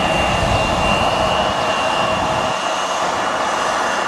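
Bombardier CRJ1000 regional jet's twin rear-mounted GE CF34 turbofans running as it moves along the runway: a steady high whine over a rushing roar. The low rumble eases about two and a half seconds in.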